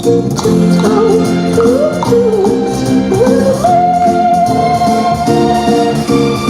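Music: a melody, likely sung, that wavers and climbs, then holds one long high note over steady sustained chords.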